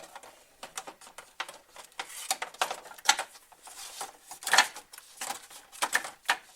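Radiator fan impeller knocking and scraping as it is worked through a narrow gap and fitted onto the fan motor shaft: a string of irregular clicks and rubs, the loudest about four and a half seconds in.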